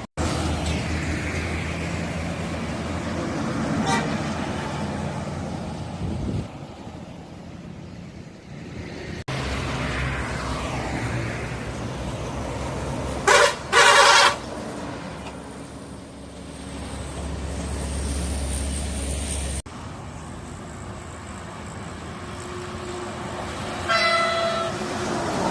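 Buses passing with a low engine rumble, and a bus horn sounded in greeting: two short, loud blasts about halfway through, with a briefer horn note near the end.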